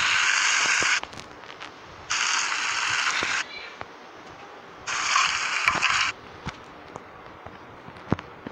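Food sizzling in a hot pan, heard in three bursts of about a second each that start and stop abruptly. Faint crackles and pops come in between.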